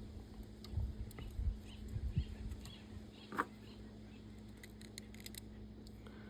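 Faint low knocks of a file and chain being handled, with one short scrape about three and a half seconds in, then only a steady low hum; the filing strokes have stopped.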